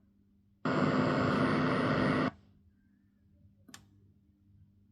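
Grundig Fine Arts M100-T radio tuner between stations: a burst of static hiss with a low hum in it, starting and stopping abruptly and lasting about a second and a half. A single sharp click follows a couple of seconds later.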